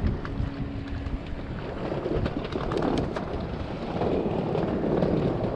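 Wind buffeting the microphone outdoors: a steady, rough low rumble with scattered small clicks.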